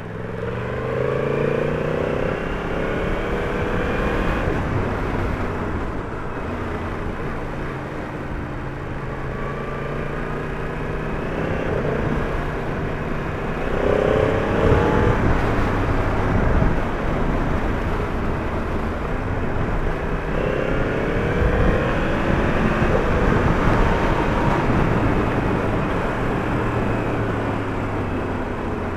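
Yamaha MT-10 motorcycle's inline-four engine under way, with steady wind and road noise. The engine pitch rises in three runs, about a second in, at around fourteen seconds and at around twenty-one seconds, as it accelerates, and holds steadier between them.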